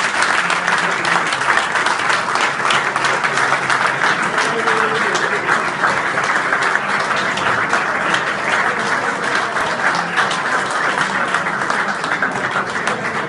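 A roomful of people applauding, many hands clapping together in a dense, continuous patter.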